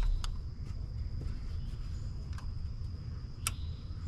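A few small sharp clicks and taps, the loudest about three and a half seconds in, as a pick works at the plastic clip of a coolant temperature sensor behind the engine. A steady high insect buzz runs underneath.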